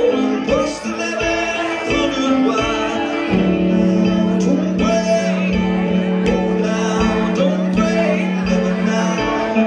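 Live blues-rock song: amplified guitar with a long held low note and a steady beat, and a man singing.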